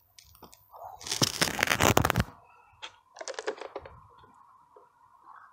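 Loud crackling handling noise close to the microphone: a dense burst of crackles about a second in, lasting about a second, then a shorter, quieter cluster of crackles about three seconds in.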